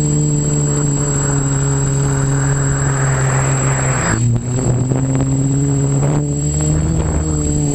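OFM Seeker 450 quadcopter's electric motors and propellers humming steadily with a thin high whine, heard from the camera mounted on the craft. A rushing noise builds over the first few seconds and cuts off about four seconds in, where the motor pitch briefly dips and wavers as the craft banks.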